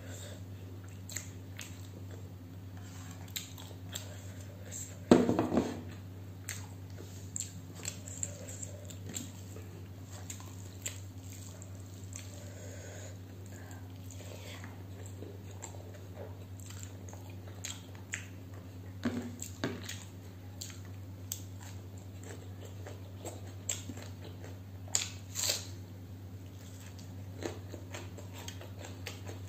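Close-miked chewing and wet mouth sounds of someone eating rice and curry by hand, with scattered soft smacks and clicks of fingers on a steel plate. A louder knock comes about five seconds in, and a steady low hum runs underneath.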